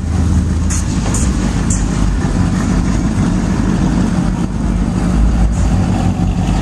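Engine of a lowered mini pickup truck running low and steady as it rolls slowly past.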